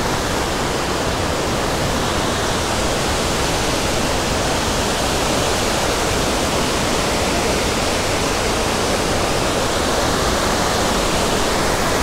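Steady rushing of Mae Ya Waterfall, a tall, many-tiered cascade, together with its stream pouring over boulders below, running full and fast at the end of the rainy season.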